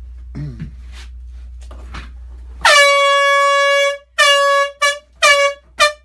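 Air horn blasting: one long blast starting a little under three seconds in, then four short blasts in quick succession.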